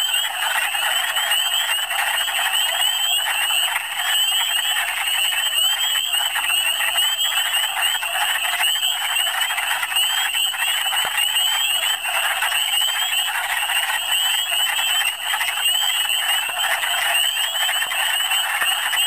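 Dense breeding chorus of wood frogs: many short clucking calls overlapping into one continuous, steady din with no break.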